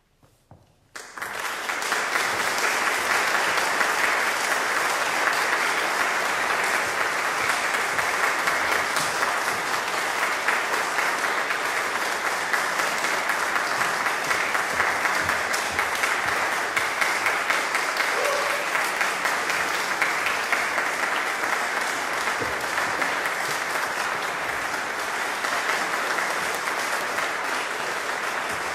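Audience applauding: the clapping breaks out about a second in and holds steady as a dense, even ovation.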